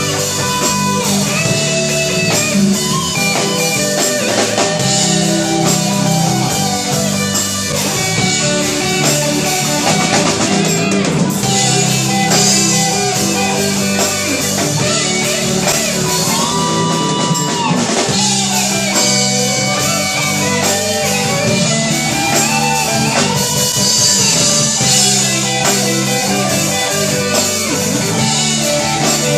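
Rock band playing: guitar over drum kit, bass and keyboard.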